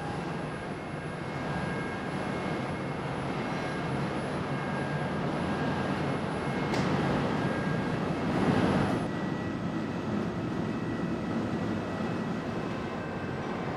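Thibaut stone bridge saw running: a steady mechanical drone with a thin high whine, swelling briefly about two-thirds of the way through.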